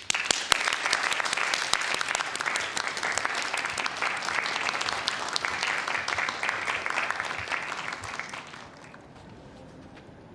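A small group of people applauding, many hands clapping at once for about eight seconds before it dies away.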